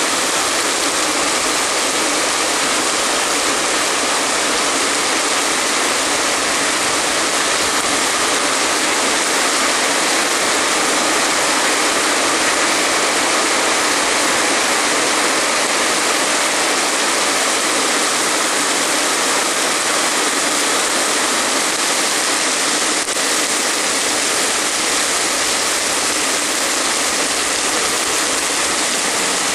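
Heavy rain falling steadily, a dense, even hiss of the downpour.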